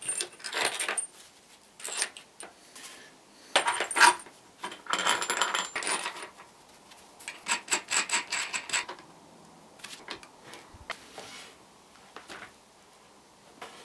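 Metal clinking and rattling of steel rods, spacers and the chainsaw bar being handled while a homemade mill attachment is fitted onto the bar. Irregular clusters of clinks, thinning to a few faint clicks in the last few seconds.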